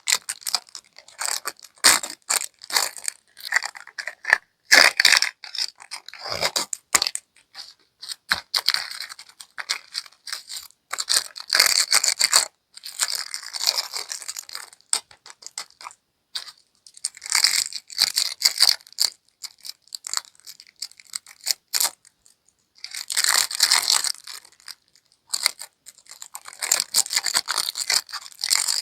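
Plastic candy wrappers crinkling and tearing in hand as candies are unwrapped, in irregular bursts of crackles and sharp clicks with short pauses between.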